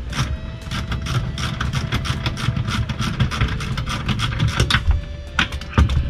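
Ratchet wrench with a 13 mm socket clicking in quick runs as the bolts holding a VW bus gear shifter to the floor are backed out, with a single knock near the end.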